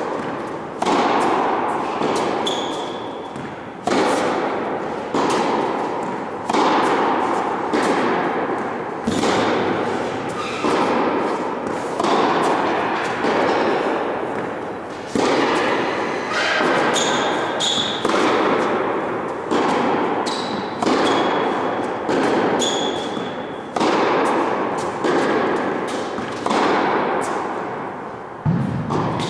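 Tennis rally: ball struck by rackets and bouncing on the court, a sharp hit about every one to one and a half seconds, each ringing out with the echo of a large indoor hall.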